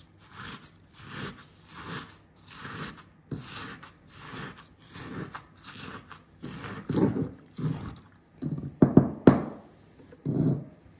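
Stone pestle crushing and grinding lime, mint leaves, strawberries and brown sugar in a stone mortar, in repeated strokes about one and a half a second that grow louder after about six seconds, with a few sharp knocks around nine seconds in.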